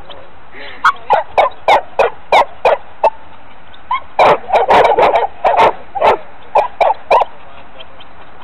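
Dog barking in play, a rapid series of short, sharp barks about three a second, with a brief pause about three seconds in and a denser flurry around the middle.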